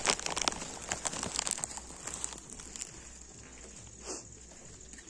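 Light rustling and crackly clicks, thinning out after about two and a half seconds, then one soft thud about four seconds in.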